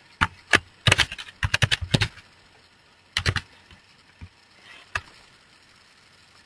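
Computer keyboard typing: a quick run of about a dozen key clicks, a short burst of a few more about a second later, then a single click near the end.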